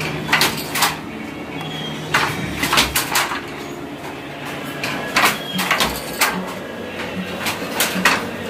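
Wooden handloom clacking as it weaves: the shuttle is thrown and the beater knocks the weft into the cloth, in groups of two to four sharp knocks every couple of seconds over a low steady hum.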